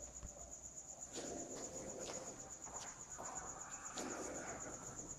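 Crickets chirring faintly with a steady high-pitched tone, with a few faint taps, likely footsteps on the court floor.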